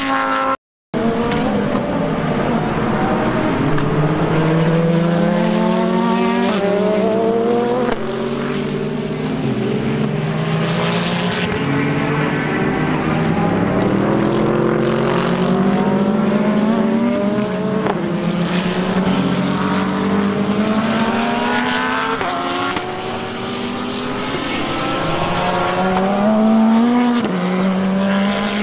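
Race cars running at speed on a road course, several engines overlapping, each note rising in pitch and dropping back again and again. There is a brief dropout in the sound just after the start.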